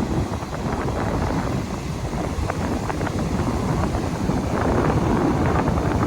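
Strong wind buffeting the microphone: a loud, steady, fluttering rumble.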